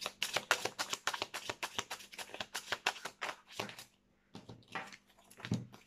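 A deck of Lenormand cards shuffled by hand, a quick run of card-on-card flicks at about seven a second that stops about three and a half seconds in, followed by a few soft handling sounds.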